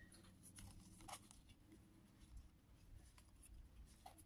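Near silence, with a few faint, soft clicks and slides of trading cards being flipped through in the hand.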